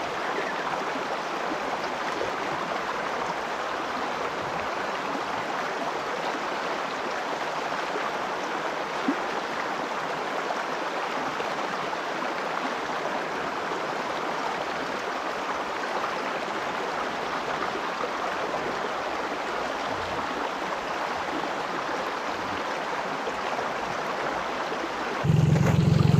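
Shallow river water rushing steadily over a stony riffle. About a second before the end it gives way to the louder, steady low hum of a boat's motor.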